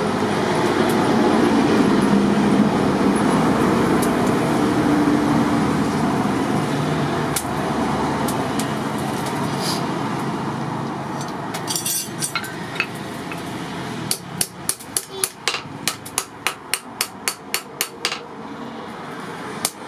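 A steady rushing noise for the first half. From about fourteen seconds in, a hand hammer strikes a red-hot steel file on a post anvil in a regular run of sharp blows, about three a second, forging it into shape.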